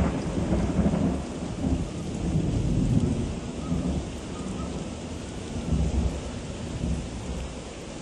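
Storm wind buffeting the microphone in a gusty low rumble, loudest at the start and easing off after about three seconds.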